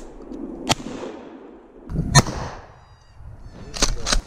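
Shotgun shots in woods: several sharp reports, the loudest about two seconds in, each fading off in echo.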